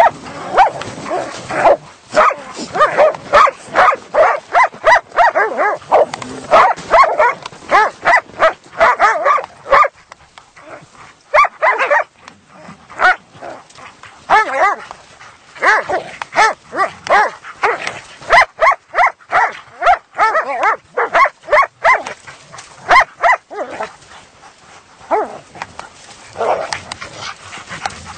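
A group of dogs barking in rapid, short bursts as they play-fight and tumble together, with brief lulls about ten seconds in and again near the end.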